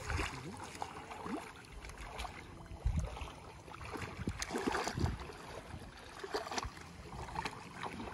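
Shallow lake water sloshing and splashing around a wading man's arms and legs as he gropes along the muddy bottom by hand, with a few dull knocks scattered through it.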